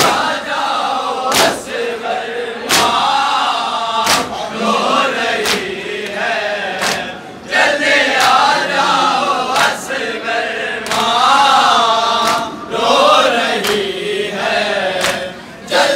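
A crowd of men chanting a noha (Shia lament) in unison, with sharp hand strikes on the chest (matam) in time about every one and a half seconds.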